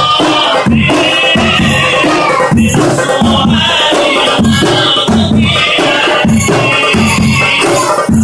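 Hadroh ensemble: a bass drum beaten with a mallet in a steady rhythm of about two strokes a second, with hand frame drums rattling over it and voices singing sholawat.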